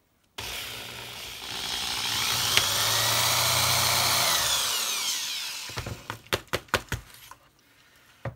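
Power drill running, drilling out a rivet on a die-cast Hot Wheels toy car. Its whine winds down at about five seconds, followed by a few sharp clicks.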